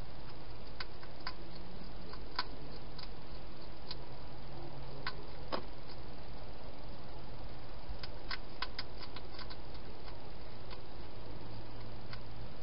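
Wild hedgehog feeding at bowls inside a plastic feeding box: scattered sharp clicks and crunches, with a quick run of them about eight seconds in, over a steady hiss.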